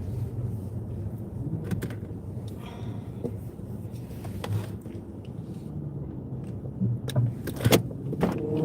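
Low steady rumble of a car idling, with scattered clicks and knocks of a car door and its latch being worked, the loudest two knocks near the end.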